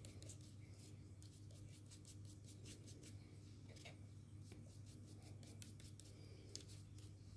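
Faint, irregular dabbing and rubbing of ink onto small paper leaves, several light taps a second, over a low steady hum.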